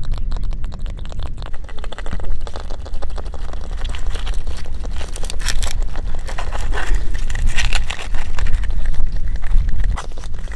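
Close handling of a live mud crab being pinned in wet mud and bound with a strip: dense, irregular crackling and clicking with scraping, over a steady low rumble.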